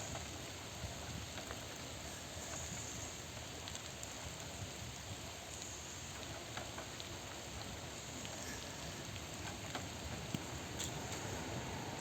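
Steady rain falling, an even hiss with scattered drops ticking on nearby surfaces.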